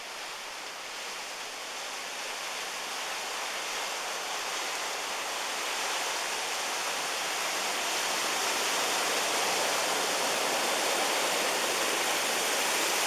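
A steady rushing noise with no engine note in it, slowly growing louder.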